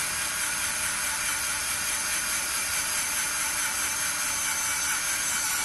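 WORX WX240 mini electric screwdriver driving a small hex-shank drill bit into a square steel tube, its motor giving a steady whine as the bit cuts the steel.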